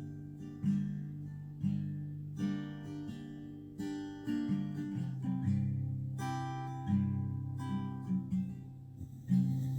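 Background music: acoustic guitar strumming chords at a slow, steady pace.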